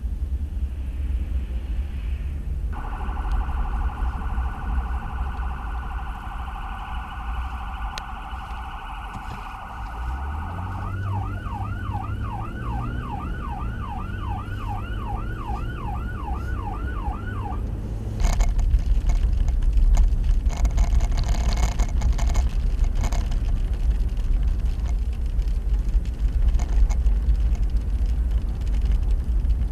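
Electronic emergency-vehicle siren over low vehicle rumble. It starts about three seconds in with a rapid warble, switches about eight seconds later to a yelp of about two sweeps a second, and cuts off about two-thirds of the way through. The rest is louder road and driving noise.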